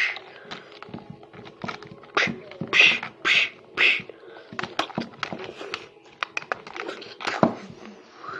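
Monster roars and growls made with the voice for a play fight between toy figures, four loud bursts in quick succession about two to four seconds in. The plastic figures knock and scrape on the floor in short clicks throughout.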